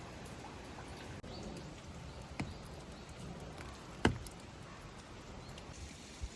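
Quiet rain ambience, with a few sharp taps or drips on top, the loudest about four seconds in.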